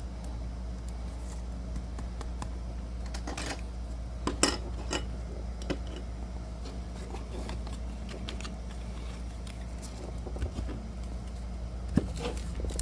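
Trading cards and plastic card holders being handled: a scattering of soft clicks and taps, loudest a little over four seconds in, over a steady low hum.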